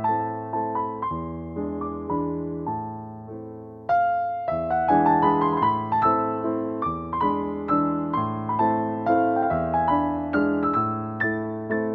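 Background music played on an electric piano: a steady run of sustained chords and notes, with a short pause a little before four seconds in.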